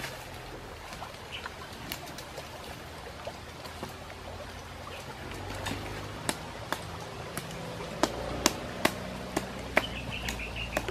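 Wood campfire crackling, with sharp pops that come more often and louder in the second half. A bird chirps briefly near the end.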